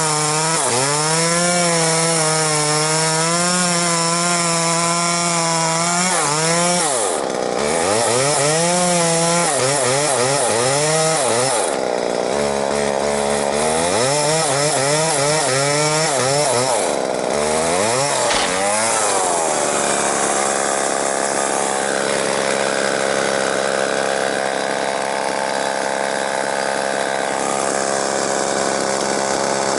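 Two-stroke chainsaw running fast and cutting elm wood. From about seven seconds in, its engine speed repeatedly dips and climbs; from about twenty seconds it holds a steadier, lower speed.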